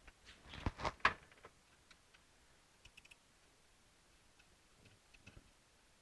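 A few sharp clicks and knocks from small parts being handled at the shifter in the first second and a half, then sparse faint ticks.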